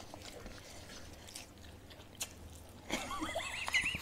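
Faint chewing and small clicks of eating, with one sharp tick about two seconds in. Near the end a cat starts mewing in a quick run of short, high calls.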